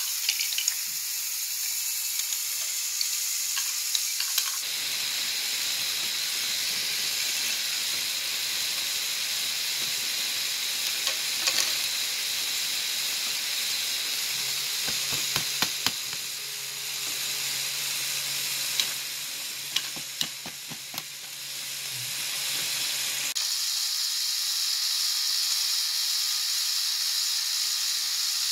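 LEGO Technic 42055 bucket wheel excavator running on its Power Functions XL motor: a steady high-pitched rattling whir of plastic gears and conveyor belt links, with scattered sharp clicks of wood pellets tumbling through the hopper and along the belt. The sound changes abruptly about four seconds in and again near 23 seconds in.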